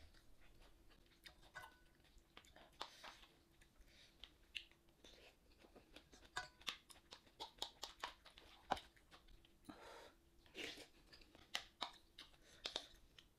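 Quiet, close-up chewing, with irregular small clicks and crunches a few times a second.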